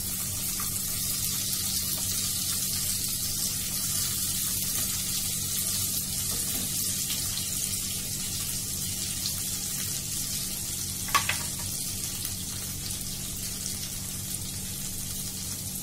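Butter melting and sizzling in hot oil in a frying pan, a steady crackling hiss, with one short click about eleven seconds in.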